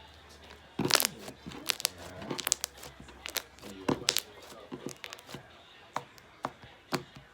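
Hand-worked slime crackling and popping as it is squeezed and stretched: a dense, irregular run of sharp pops, the loudest about a second in.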